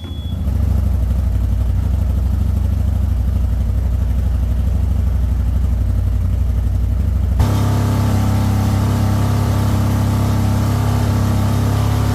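CFMOTO ZForce 1000 Sport's V-twin engine idling steadily through its exhaust, with no revving. About seven seconds in the sound changes abruptly to a fuller, brighter idle.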